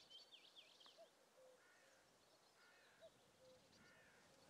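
A distant common cuckoo calls its falling two-note "cuck-oo" twice, faint, while small songbirds chirp higher up and one twitters a quick run of falling notes at the start.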